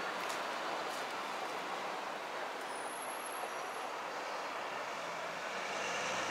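Steady rushing outdoor background noise, with a few faint clicks in the first second and a brief faint high whistle about three seconds in.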